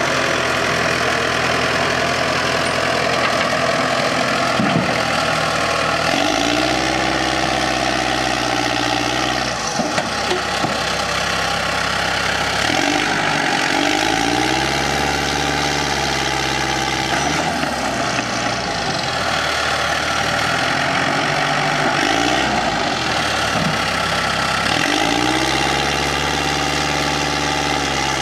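Dresser TD8G-LT crawler dozer's diesel engine running, speeding up and slowing down several times, its pitch rising and falling between steadier stretches.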